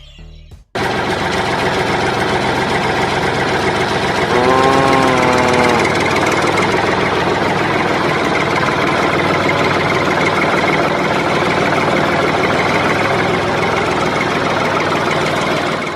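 A small motor of a working diorama model running steadily with a dense buzzing rattle, starting abruptly under a second in. About four and a half seconds in, a short pitched sound rises and falls over it.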